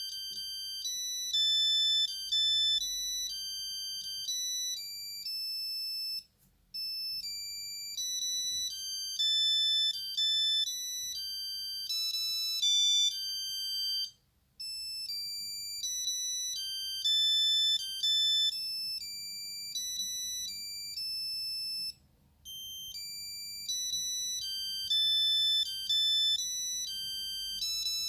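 Nokia 8210 monophonic ringtone playing through the phone's small speaker: a high, beeping one-note-at-a-time tune that loops about every eight seconds, with a short pause between repeats.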